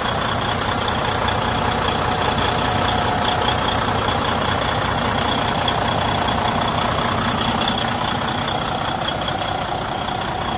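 Detroit DD15 diesel in a Freightliner Cascadia idling steadily. The engine has excessive crankcase blowby, which the mechanic traces to a cracked cylinder liner.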